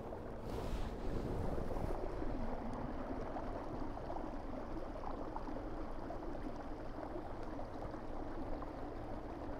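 Steady rush and churn of water from the prop wash and wake of a kayak under way, driven by a Newport Vessels 55 lb thrust electric trolling motor.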